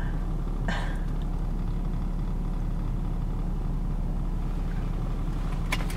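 Car engine idling, a steady low hum heard from inside the cabin, with one brief soft noise about a second in.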